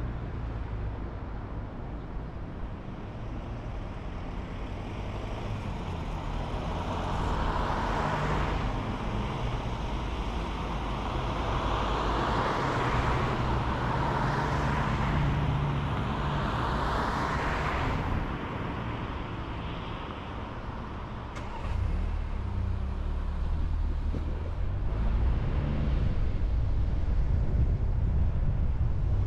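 Car driving on a road: a steady engine and tyre rumble, with several swells of road noise that rise and fall between about 6 and 18 seconds in, and the rumble stepping up a little past 20 seconds in.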